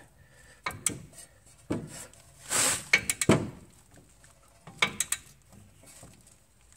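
Metal hand tools clinking and clicking in irregular knocks, with a short rasp about two and a half seconds in: a 22 mm socket and torque wrench being handled on a ball joint nut.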